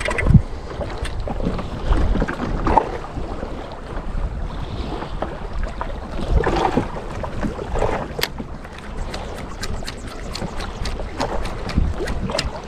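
Wind buffeting the microphone and water slapping against a small boat's hull on open sea, with scattered light clicks in the second half.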